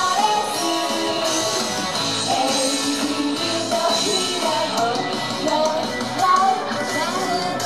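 Female idol singer singing live into a handheld microphone over loud rock-style backing music with drums, heard through the stage speakers.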